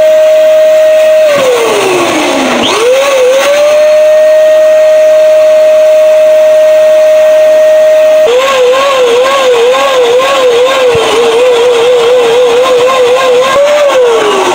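A loud, steady whistling tone, most likely an edited-in sound effect for the back being pumped up. It slides down in pitch and back up about two seconds in, holds steady, then warbles from about eight seconds in and slides down at the end.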